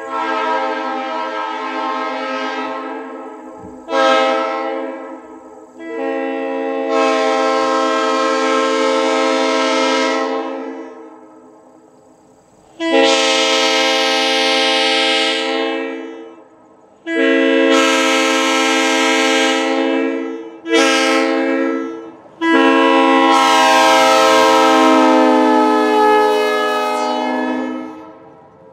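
A 1950s Leslie S-3L-RF three-chime locomotive air horn, ex-Union Pacific, blown seven times, mostly long blasts with two short ones, each a steady chord of three chime tones sounding together.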